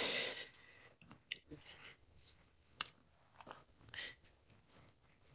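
A quiet pause holding a few faint, scattered clicks and small ticks, with a soft rush of noise at the very start.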